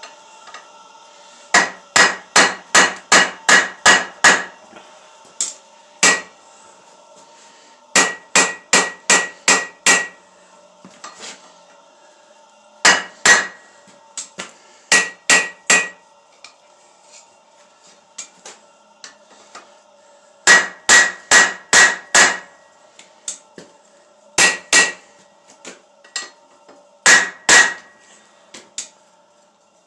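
Hand hammer striking hot steel on an anvil, in bursts of rapid ringing blows, about three to four a second, with short pauses between bursts. A faint steady hum runs beneath.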